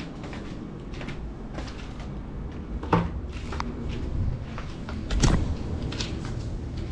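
Handling knocks and clicks from a small camera-carrying FPV drone being carried and set down on the floor, with two louder thumps about three and five seconds in.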